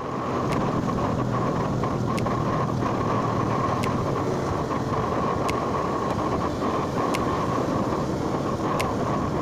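Motorcycle riding at low speed, heard from the rider's own bike: steady engine and road noise with wind on the microphone, and a faint click repeating about every one and a half seconds.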